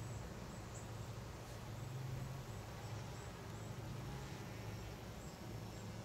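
Faint outdoor ambience: a steady low hum with soft, evenly repeating high chirps.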